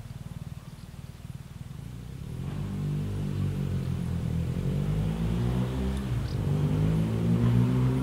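A motor vehicle's engine approaching, its drone growing louder from about two seconds in and loudest near the end, with the pitch bending as it goes, over a low background rumble.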